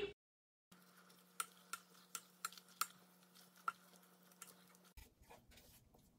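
Faint, irregular light taps and clicks of a spatula against a stainless steel stockpot while ground turkey is stirred and broken up as it browns, over a low steady hum.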